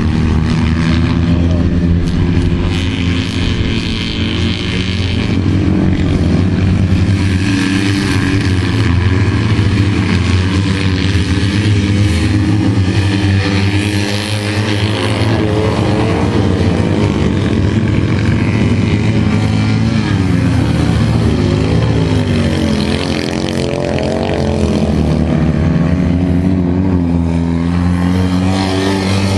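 Citroën 2CV race car's air-cooled flat-twin engine running hard at high revs, its pitch rising and falling as the throttle is worked.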